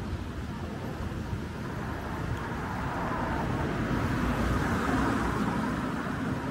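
City road traffic beside the sidewalk: a steady rumble of cars, growing louder around the middle as a car drives past.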